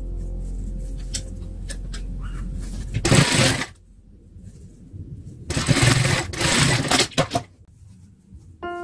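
Industrial sewing machine running with a steady low motor hum and a few clicks, stopping about three seconds in. Then fabric rustles loudly twice as the sewn piece is handled and pulled out from under the presser foot, with a couple of sharp clicks.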